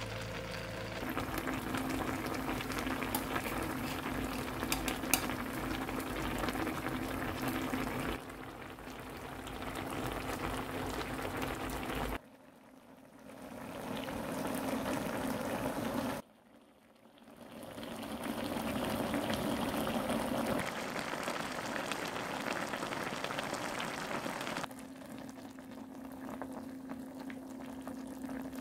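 Budae-jjigae (Korean army stew) broth boiling and bubbling in a shallow pan. The bubbling cuts and changes several times, with two brief quieter stretches about twelve and sixteen seconds in.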